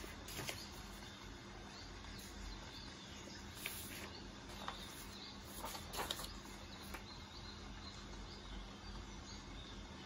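Rainforest ambience of birds and insects over a steady hiss, with a few short rustles of paper sheets being handled and set down on the desk.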